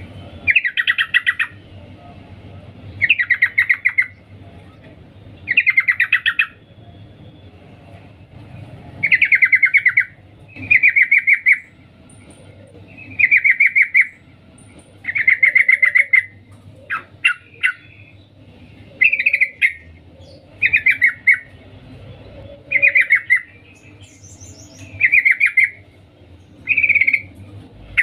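Trucukan (yellow-vented bulbul) giving short, rapid chattering "cuk cuk" calls in about a dozen bursts roughly every two seconds. The uploader presents this as a female's call to summon a male.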